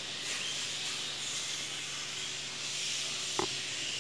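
Steady background hiss with no speech, and a single short click about three and a half seconds in.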